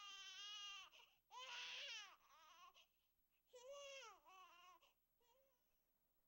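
Infant crying in a series of high, wavering wails, the later cries shorter and fainter until they die away near the end.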